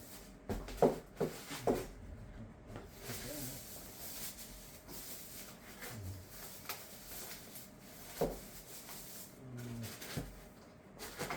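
A few light knocks and clicks of scooter parts and packaging being handled, clustered in the first couple of seconds, then faint room tone with a single sharper knock about eight seconds in.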